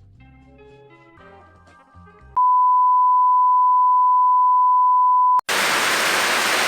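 Soft guitar music, then a loud steady beep-like test tone that holds for about three seconds and stops abruptly. A moment later a loud, even hiss of static-like noise starts.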